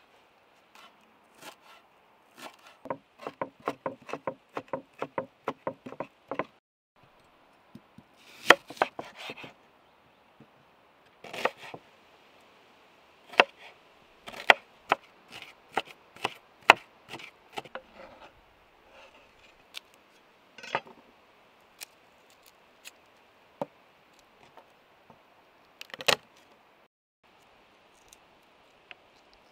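Chef's knife chopping on a wooden cutting board: first a quick, even run of about four strokes a second, then slower, louder single chops through red onion, with a few light taps and rubs between.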